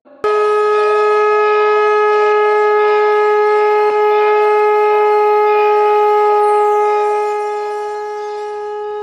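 Conch shell (shankha) blown in one long steady note, starting sharply just after the start and easing a little softer after about seven seconds.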